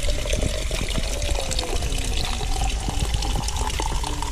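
A thin stream of spring water pouring into a plastic bicycle water bottle and splashing on stone, with a steady hiss. Under it, a filling note rises slowly in pitch as the bottle fills.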